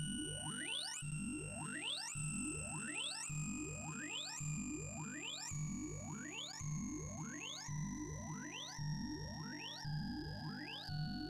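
Sorting-algorithm sonification from the ArrayV visualizer running Lazy Stable Sort, an in-place merge sort, on 256 numbers. Soft synthesized tones follow the values being accessed, forming a quick rising sweep about once a second. Each sweep ends on a held high tone that steps lower from one sweep to the next.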